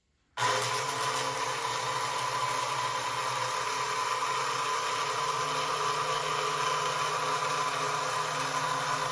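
Lionel #182 magnetic crane's electric motor and gearing running steadily as the crane cab swivels to the right, starting suddenly about half a second in.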